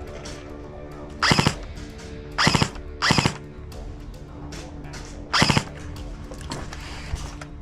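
Four short bursts of full-auto airsoft gun fire, each a rapid string of shots lasting a fraction of a second: three close together in the first few seconds, then one more a couple of seconds later.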